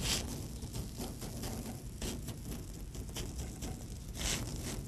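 Wild rice pancake batter sizzling and crackling on a hot oiled griddle as a metal measuring cup presses it flat, with brief louder rushes at the start and about four seconds in.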